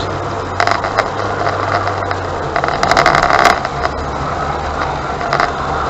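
Car engine running steadily at low speed, heard from inside the cabin; its note drops lower about two and a half seconds in. Short bursts of noise are heard around a second in and again around three seconds in.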